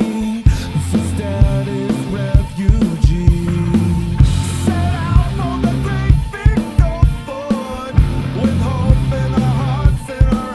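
Rock song playing: a driving drum-kit beat and heavy bass under a sung melody.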